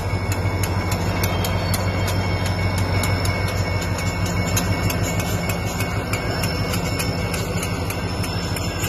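Railroad crossing bell ringing steadily, a few strokes a second, over the low, steady rumble of a diesel locomotive moving slowly past while switching hopper cars into a spur.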